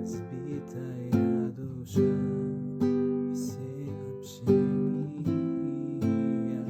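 Song music: strummed acoustic guitar chords, a new chord roughly every second, with no singing.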